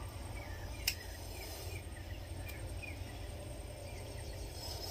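Quiet outdoor background: a steady low rumble with a series of faint, short chirps, and a single sharp click about a second in.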